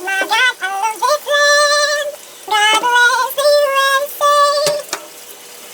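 A woman's voice singing unaccompanied: a short run of notes, then several long flat held notes with brief breaks between them.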